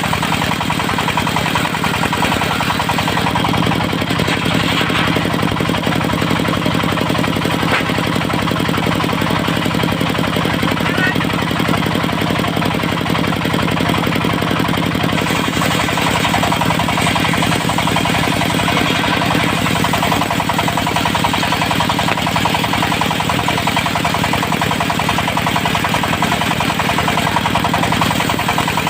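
Diesel engine of a mobile circular-saw sawmill running steadily with a fast, even knocking beat.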